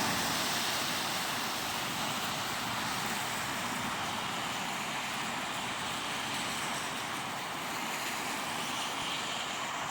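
Steady hiss of road traffic going past, an even wash of noise with no single vehicle standing out.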